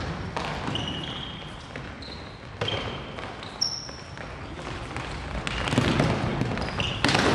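Futsal ball being kicked and bouncing on a wooden gym floor, a series of sharp thuds, with several short, high squeaks of players' indoor shoes on the court.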